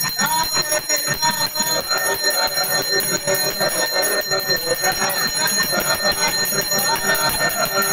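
Bells ringing without pause during a homam puja, a fast run of strikes over a steady high ringing.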